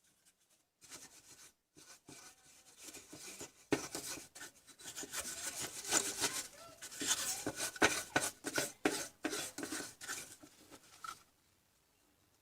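Irregular scraping and rubbing mixed with sharp clicks, loudest in the middle, stopping abruptly about eleven seconds in.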